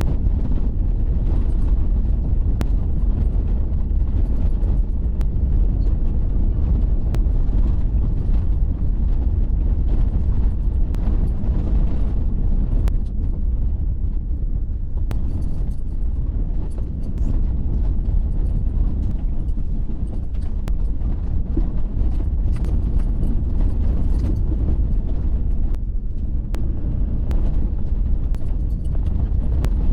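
Waterfall running: a steady, heavy low rumble of falling water.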